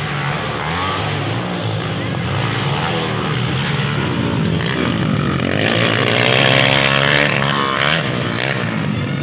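Dirt bike engines revving and changing pitch as motocross bikes race past on a dirt track. The sound swells loudest a little past halfway as a bike passes close.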